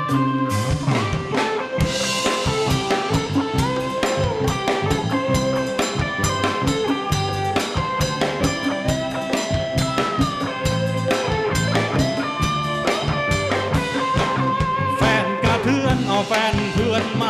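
Live rock band playing an instrumental break: electric guitars and a drum kit keeping a steady beat, with a melodic lead line that bends in pitch over the top and no singing.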